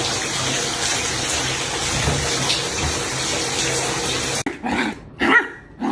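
Water pouring steadily through a leaking roof, a constant rushing splash. About four and a half seconds in it cuts off abruptly, followed by short voice-like pitched sounds.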